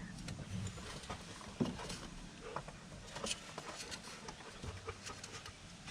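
Faint, scattered light clicks and taps of hands and tools handling parts in a car's engine bay during alternator removal.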